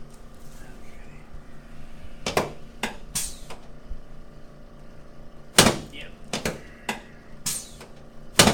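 A string of sharp pops and knocks from a chiropractic adjustment, joints being cracked and the patient shifted on the treatment table. There are about eight, unevenly spaced, and the loudest come about five and a half seconds in and near the end.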